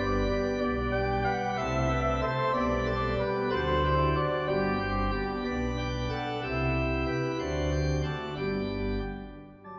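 Pipe organ playing slow sustained chords over a bass line that steps from note to note, dying away near the end.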